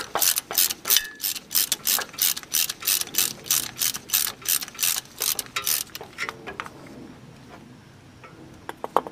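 Ratchet wrench clicking in quick, even strokes, about three clicks a second, as the 11 mm banjo bolt of the brake line is turned out of the old rear brake caliper. The clicking stops about six seconds in, and a couple of light metal clinks follow near the end.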